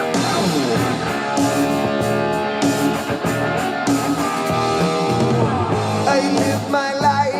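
Rock music with guitar and drums, and a singing voice coming in near the end.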